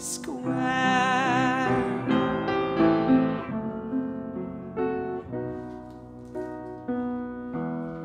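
A woman's voice holds a sung note with vibrato over upright piano chords for about two seconds, then the upright piano plays on alone, a string of chords and single notes that grows quieter in the middle before swelling again near the end.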